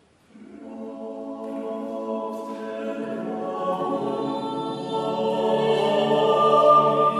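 A small vocal consort singing a late-Renaissance Latin psalm setting in sustained, overlapping parts. The voices enter together after a pause about a third of a second in, a lower voice joins about three seconds in, and the sound grows louder toward the end.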